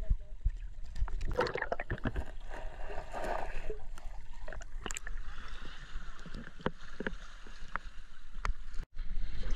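Sea water heard through a camera held underwater: a muffled wash with many scattered sharp clicks and knocks. Near the end there is a short break, and then the splashing rush of water flowing between rocks heard from above the surface.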